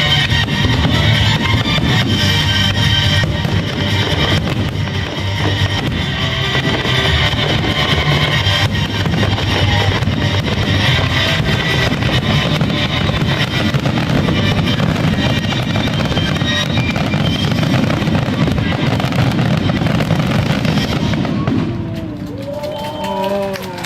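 Fireworks bursting and crackling over loud music with guitar and drums. Both die away about three-quarters of the way through, leaving a few crowd voices.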